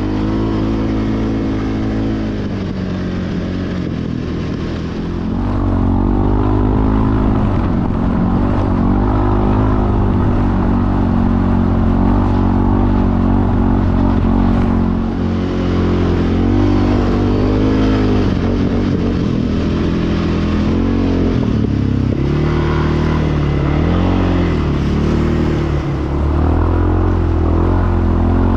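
ATV engine running under changing throttle, its pitch rising and falling again and again as it is ridden. It gets louder about five seconds in.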